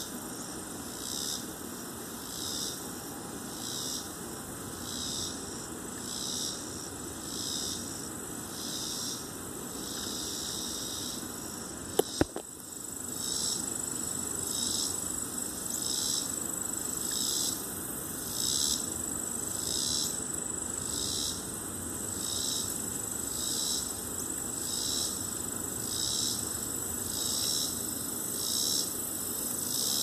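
Insects calling in an even rhythm of high pulses, a little more than one a second, with a thin steady high drone joining from about halfway through. Two sharp clicks about twelve seconds in.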